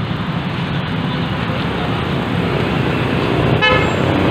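Steady street traffic and engine noise, with one short vehicle horn toot about three and a half seconds in.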